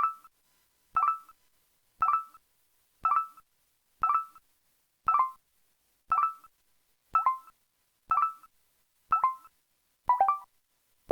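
EV-F200 mobile phone system sound effect played on its Qualcomm CMX polyphonic synth chip: a short, bright electronic blip repeating about once a second. Near the end it changes to a quick falling figure of several notes.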